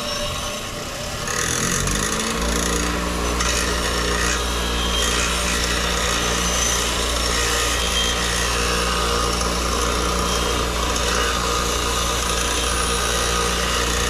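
Bench grinder motor spinning up to speed about two seconds in, then running steadily with a low hum while its wire wheel scratches against the ends of cut rebar, cleaning them for welding.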